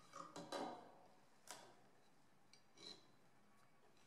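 Faint knocks and clicks of a steel claw hammer handled against a pine board and laid down on a plywood tabletop. There is a cluster in the first second, a sharp click about a second and a half in, and a light metallic clink about three seconds in.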